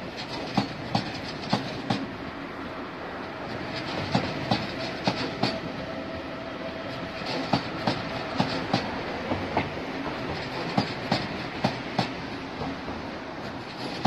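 Deutsche Bahn ICE train rolling slowly through a yard throat, its wheels clacking over the points and crossings in sharp clicks, often in close pairs, above a steady rumble.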